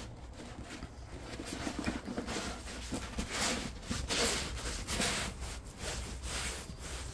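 Rolled diamond painting canvas rustling and scraping over a tablecloth as it is handled and pressed flat. It makes an irregular run of rustles and scuffs, loudest about halfway through.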